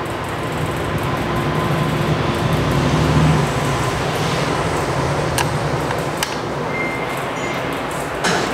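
Steady mechanical background drone and hiss, with a few sharp light clicks about five and six seconds in.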